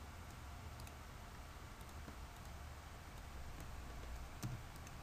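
A few faint, scattered clicks from a computer keyboard and mouse over a low steady hum.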